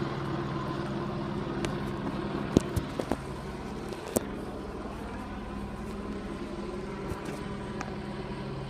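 Steady drone of a helicopter hovering overhead. A few sharp clicks or knocks sound close together about two and a half to four seconds in, the first the loudest.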